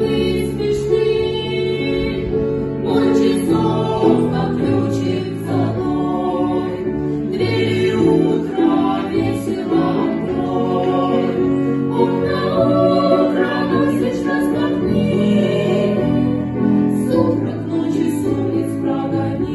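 Several voices singing together in an ensemble with piano accompaniment.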